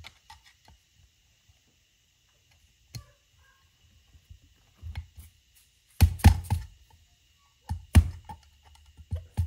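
Sharp metallic clicks and taps as the lock tabs on a Weber 44 IDF carburetor's nuts are bent over with a tool. There is a single tap about three seconds in, a few light ones near five seconds, a quick cluster of louder clicks around six seconds and another sharp one near eight seconds.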